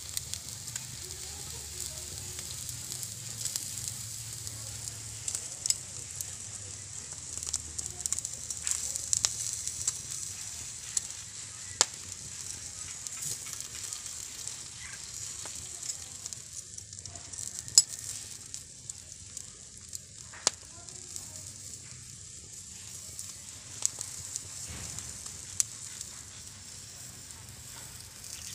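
Chicken pieces sizzling on a wire grill rack over an open fire, a steady hiss with scattered sharp crackles and pops.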